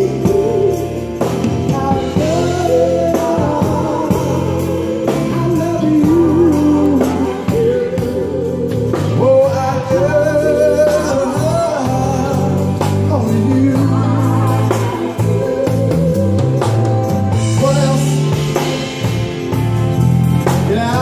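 Live band music from a blues song: a wavering melody line over steady bass notes.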